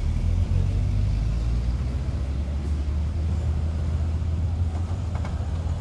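WWII German halftrack's engine running with a deep, steady rumble, with a few faint clicks near the end.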